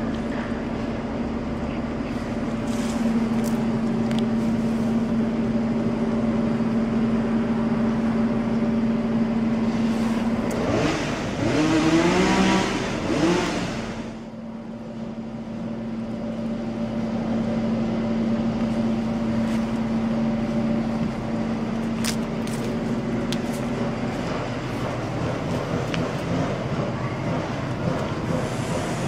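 Street traffic: a vehicle engine humming steadily, with a louder vehicle passing and revving from about ten to fourteen seconds in.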